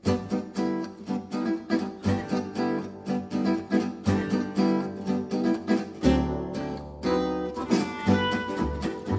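Gypsy-jazz acoustic guitars strumming a rhythmic chord pattern, with a deep bass joining about six seconds in.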